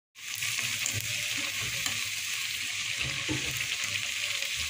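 Potato patties deep-frying in hot oil, a steady sizzle that starts abruptly a moment in and holds level.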